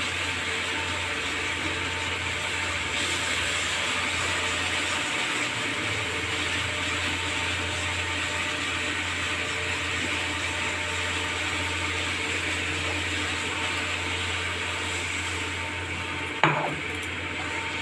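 Thick curry masala sizzling steadily in an aluminium kadai on a gas burner while a spatula stirs and scrapes through it, with one sharp knock of the spatula against the pan near the end.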